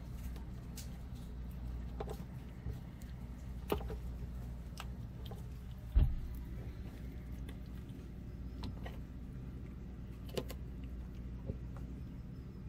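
Steady low hum with scattered light clicks and taps, and one sharp knock about six seconds in.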